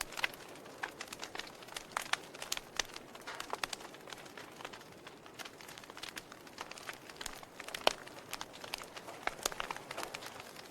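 Wood fire in a fireplace crackling, with irregular sharp pops and snaps over a soft hiss, and one louder pop about eight seconds in.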